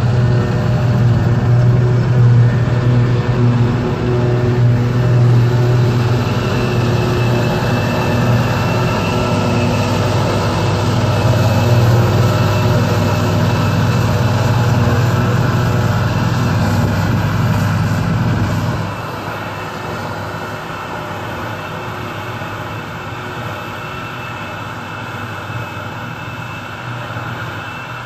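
Heavy diesel engines of a Claas Jaguar 870 forage harvester and a Claas Axion tractor pulling a silage wagon, running steadily under load while chopping and loading grass. A loud, steady drone that drops suddenly about two-thirds of the way through to a quieter, still steady running.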